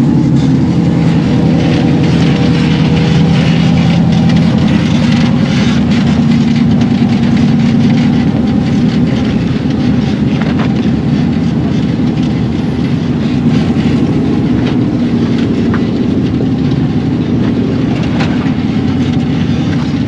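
Off-road rock-crawling vehicle's engine running steadily at low speed, loud and close.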